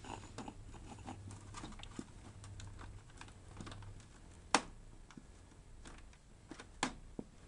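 Scattered small clicks and taps of hands working on the internal parts of an opened PS4 console, with a sharper click about four and a half seconds in and another near the end.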